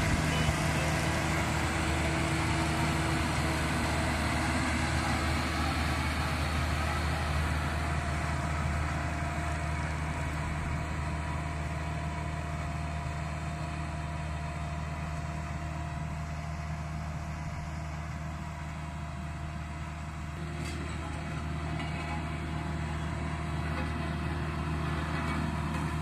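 HAMM 3410 single-drum road roller's diesel engine running steadily with a deep, even hum as the roller drives along the road base, a little fainter in the middle of the stretch.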